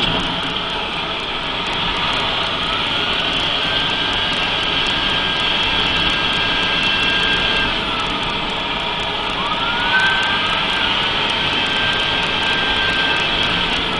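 Mercedes-Benz 3340 truck's diesel engine being revved, with a high turbo whine that climbs as the revs rise about two seconds in, holds, drops away around the eight-second mark, then rises sharply again and holds. This is the abnormal turbo noise of a failing turbocharger.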